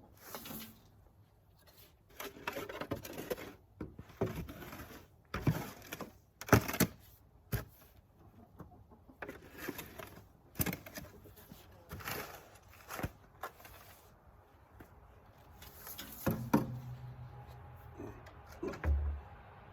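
Irregular scraping and knocking as old bedding and droppings are scraped and shovelled out of a chicken coop, with a short low hum near the end.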